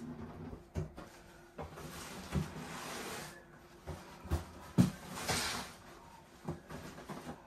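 Cardboard boxes being handled: an inner box is slid up out of its outer carton, cardboard scraping against cardboard, with several dull knocks.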